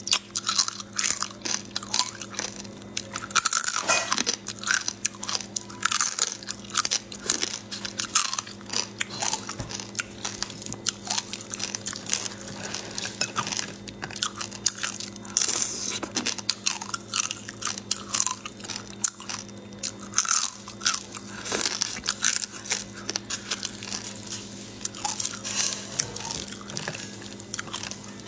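Close-up crunching and chewing as cooked shellfish shells are bitten through, in a rapid, irregular run of sharp cracks.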